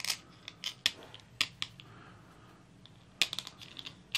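Small metal screws clicking and tapping against a clear plastic case plate as they are pushed through it by hand: scattered sharp clicks, with a quick cluster about three seconds in.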